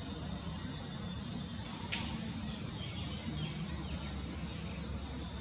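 Outdoor ambience: a steady high insect drone over a low rumble, with one short sharp chirp about two seconds in and a few faint chirps after it.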